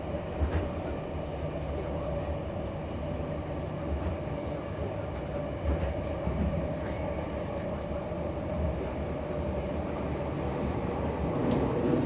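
Tokyo Metro 10000 series subway car heard from inside while running: a steady rumble of wheels on rail with a few sharp clicks, growing a little louder near the end.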